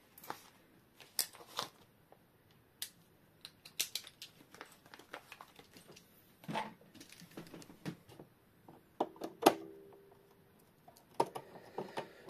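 Irregular small clicks and taps of a screwdriver and metal clock parts being handled on a workbench while an old Junghans clock is taken apart.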